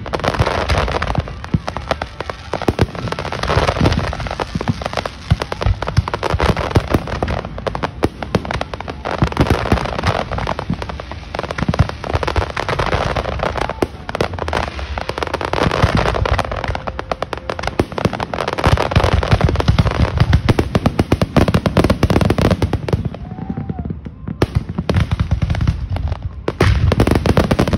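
Large aerial fireworks display: shells bursting overhead in rapid, near-continuous bangs with heavy low booms. There is a brief lull about 23 seconds in, then it builds loud again near the end.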